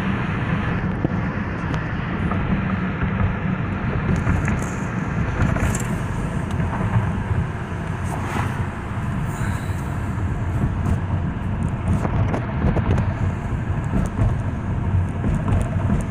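Steady engine and road noise heard from inside the cabin of a 2003 Honda CR-V being driven, with its swapped-in K20 2.0-litre four-cylinder running with no sign of trouble.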